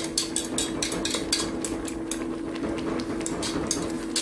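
Wire potato masher striking the bottom and sides of a stainless steel pot while mashing cooked tomatoes: irregular sharp metallic clicks, several a second. A steady low hum runs underneath.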